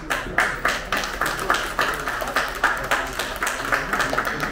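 Audience applauding: a steady run of many hand claps.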